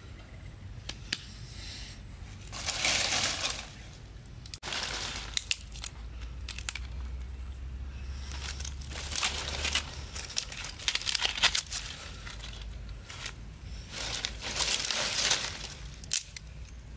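Scraping, crackling and rustling in three bursts of a second or two each, with scattered clicks between them, as a wooden stick is handled and shaved with a knife.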